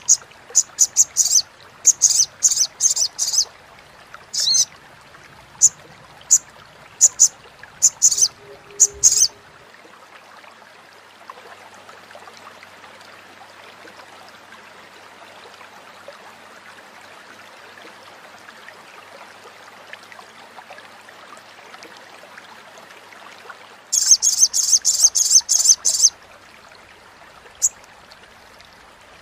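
Olive-backed sunbird (sogok ontong) giving its crecetan: rapid series of sharp, high-pitched chattering notes in quick clusters for the first nine seconds or so. A long pause follows with only a faint steady hiss, then another dense burst of chatter about 24 seconds in, and a few single notes near the end.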